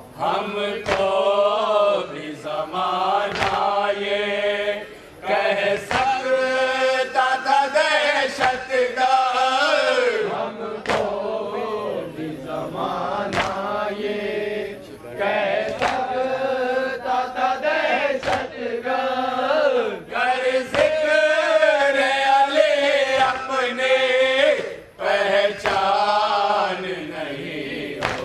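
Group of men chanting a nauha (Shia lament) in unison into microphones, in long phrases with short breaks. Sharp slaps of matam, hands striking chests, come about once a second.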